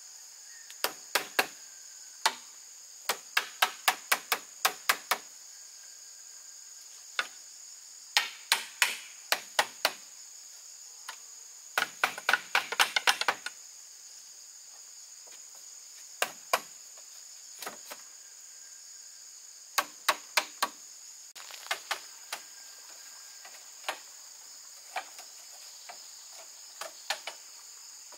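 Sharp blows of a hand tool on bamboo, coming in irregular bursts of a few to a dozen quick strikes with pauses between, over a steady high-pitched drone of insects.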